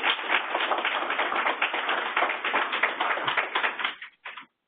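Audience applauding, a dense patter of many hands clapping that thins out about four seconds in, with a few last claps before it stops.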